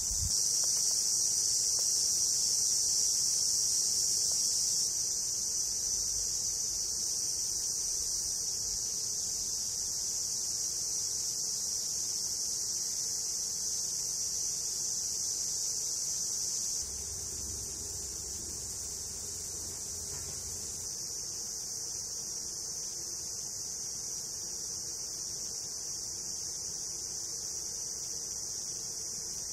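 Steady high-pitched chorus of insects chirping in summer grassland, with a faint low rumble for a few seconds past the middle.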